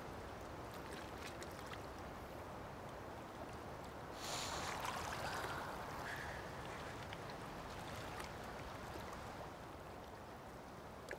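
Water rippling and lapping as a steady, quiet wash, with a louder rush of noise about four seconds in that lasts a couple of seconds.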